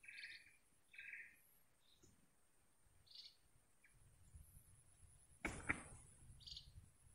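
Faint bird calls in quiet marsh ambience: short buzzy calls in the first second, then thin high chirps every few seconds. A brief knock comes about five and a half seconds in, over a faint low rumble in the second half.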